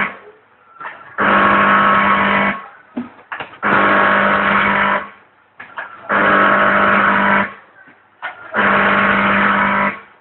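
Soy milk sachet packing machine running through its cycle: a loud, pitched buzzing hum switches on for about a second and a half and cuts off, repeating evenly about every two and a half seconds, four times.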